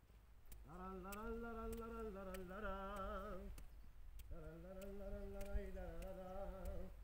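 A lone voice singing wordless long-held notes in two phrases, the first wavering in pitch near its end, the second slightly lower and steadier. Faint clicks sound underneath.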